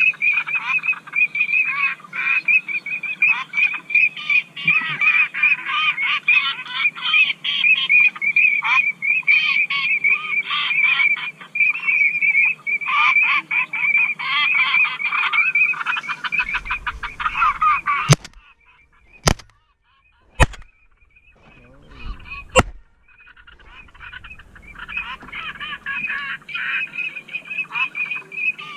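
A dense chorus of waterfowl calling, many calls overlapping. It stops abruptly about eighteen seconds in, a few sharp clicks sound during the short gap, and the calling resumes about five seconds later.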